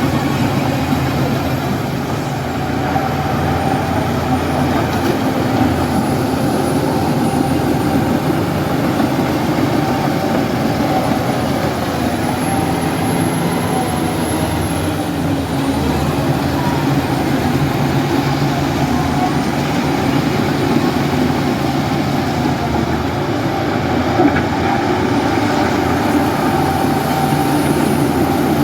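Heavy diesel engine running steadily with no clear change in load, a thin high whine above it.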